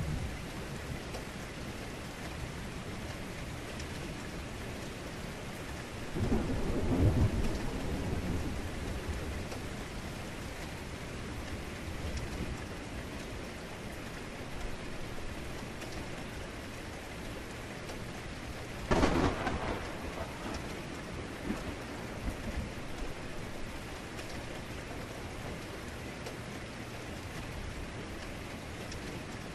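Heavy rain falling steadily, with a deep rolling rumble of thunder about six seconds in and a sharper thunderclap, cracking and then rumbling briefly, about nineteen seconds in.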